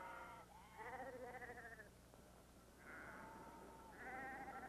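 A flock of sheep bleating faintly, several wavering calls overlapping, with a short lull about halfway through.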